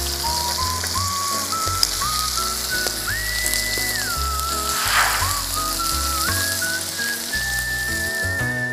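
Meat sizzling in a hot pan or on a grill, a steady crackling hiss. Over it plays background music with a whistled melody and bass.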